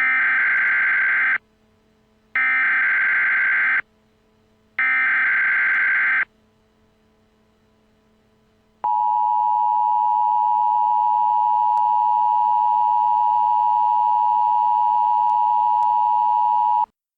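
Emergency Alert System alert opening: three SAME header data bursts, each a harsh warbling screech about a second and a half long, a second apart. These are followed by the EAS two-tone attention signal (853 and 960 Hz), a steady loud tone held for about eight seconds that cuts off suddenly.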